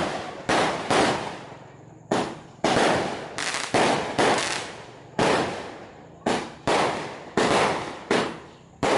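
A fireworks display: about a dozen loud bangs in quick, irregular succession, each fading away over about half a second, with a short lull a second and a half in.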